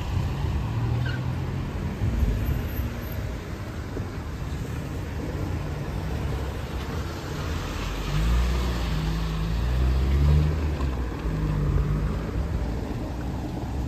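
City street traffic: cars driving past, with one vehicle's engine growing louder and passing close about eight to eleven seconds in.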